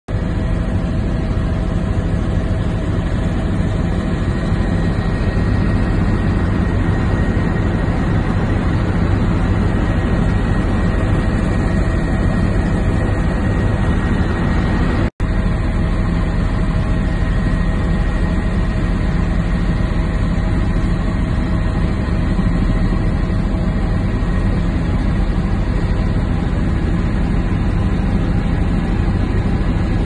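Helicopter cabin noise: a loud, steady engine and rotor drone with a steady whine above it, dropping out for an instant about halfway through.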